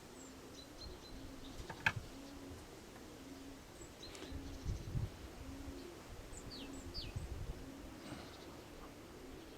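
Pigeons cooing softly in an even, low repeated note about once a second, with small birds chirping in short high notes and wind gusting on the microphone.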